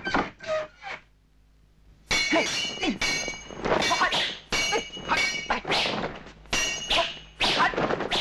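Film fight sound effects: a few sharp hits, a brief near-silent pause, then a rapid run of sword clashes with bright metallic ringing, mixed with whooshes and thuds.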